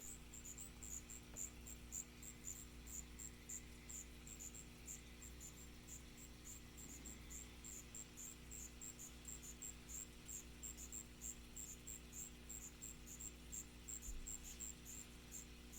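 Male striped ground crickets (Allonemobius fasciatus) giving their mating song: faint, short, high-pitched chirps repeated several times a second without a break.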